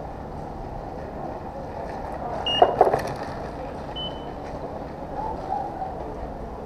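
A road bicycle passing close over cobblestones, a brief burst of rattling knocks about two and a half seconds in, over steady background noise.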